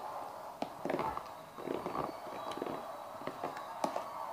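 Spoon clicking and scraping against a plastic tub while creamy fruit salad is stirred, in irregular light knocks.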